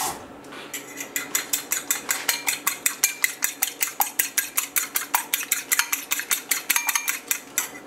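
A fork beating an egg with a splash of water in a ceramic bowl, clicking against the bowl about six times a second, starting about a second in.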